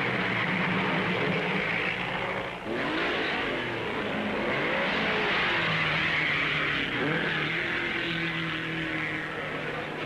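1950s Grand Prix racing car engines running and revving, the pitch rising and falling several times in the middle.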